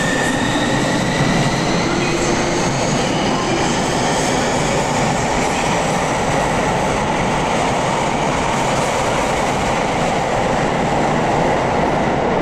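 Sotetsu 21000 series electric train pulling out of an underground platform: its motor whine rises in pitch over the first few seconds as it accelerates, then gives way to a steady loud rumble of wheels on rail as the cars run past.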